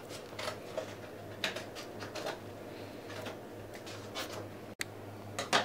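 Faint small clicks and rustles of hands tying a knot in elastic cord, over quiet room tone with a steady low hum.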